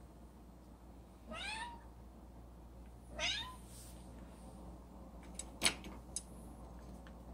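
Tabby cat meowing twice, short calls rising in pitch, begging for food. Then a few sharp clicks, the loudest a little past halfway.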